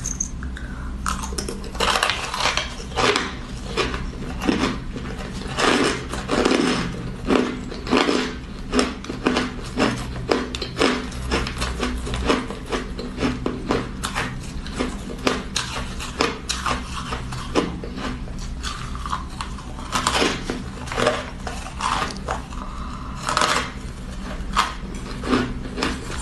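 Close crunching of frozen ice being chewed, irregular crisp crunches about two a second.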